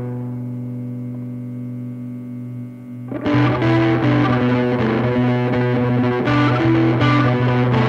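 Rock music: a held, distorted electric guitar chord fades, then about three seconds in the band comes in louder with a guitar riff.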